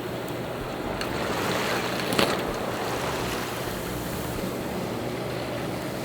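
Sailboat underway: a steady rush of water along the hull mixed with wind, and a brief sharp splash-like sound a little over two seconds in.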